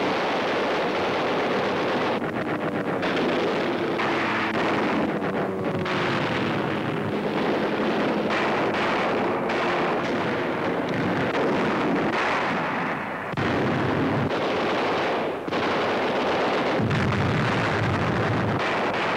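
Heavy anti-aircraft gunfire from a carrier's guns, a dense continuous barrage of shots and explosions.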